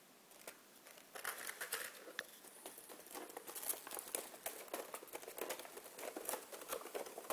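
Thin clear plastic tray of miniature figures being handled, crinkling and clicking. It starts about a second in.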